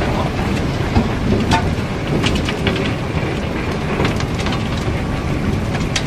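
Iron ore and rock clattering and trickling down through an opening in a barge's hold, over a steady low rumble, with a few sharp knocks as a steel bar prods the pile.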